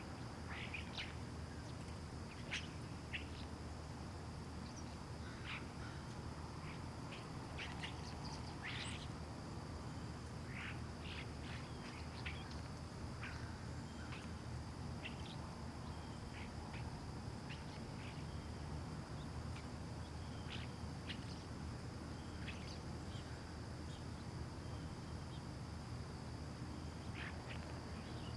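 Residential outdoor ambience: small birds chirping in short, scattered calls over a steady low background rumble, with a faint steady high hiss.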